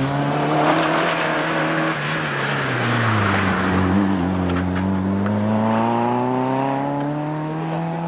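Rally car engine taking a tight bend: the engine note falls as the car slows into the corner, bottoming out about three and a half seconds in, then climbs steadily as it accelerates away. A few sharp clicks sound in the middle.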